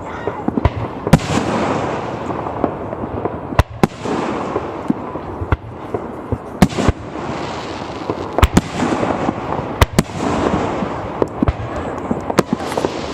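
Fireworks going off: about a dozen sharp bangs at irregular intervals over a steady din of further bursts.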